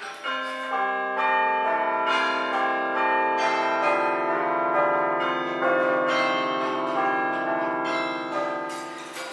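Bell-like chimes added as a heavenly music cue: notes come in one after another over the first few seconds and ring on together as a sustained chord, fading out near the end.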